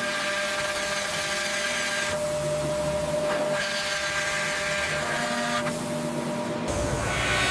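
Factory machinery running with a steady whirring hum and hiss, shifting abruptly in character a few times.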